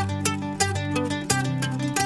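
Background music: a plucked-string melody in quick, even notes over a steady bass line.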